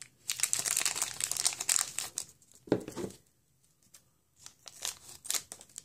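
Shopkins blind-bag packet being torn open and crinkled by hand, with a dense stretch of crackling for the first two seconds, then a pause and a few scattered crinkles and clicks near the end as the contents are handled.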